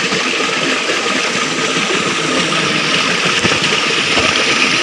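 Water of a small mountain stream rushing over rocks, a steady, even rush.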